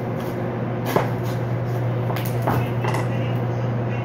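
A watermelon being cut and split in half on a cutting board: a sharp crack about a second in, then a few softer knocks and thuds between two and three seconds in. A steady low hum runs underneath.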